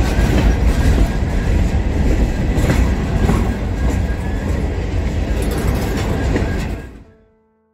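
Freight train running close by: a loud, heavy rumble with occasional sharp knocks. It cuts off abruptly about seven seconds in.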